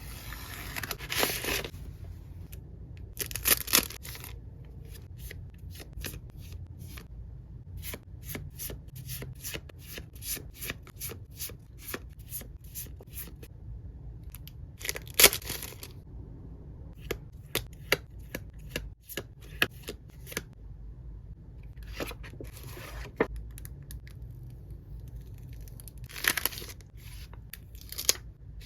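Packaging being handled and torn open by hand: several loud tearing or ripping bursts, with runs of many short crinkling clicks in between.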